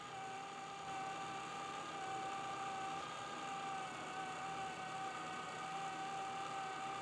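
Yaesu antenna rotator running, its motor and gear train giving a steady whine as it turns the tower and Yagi antenna.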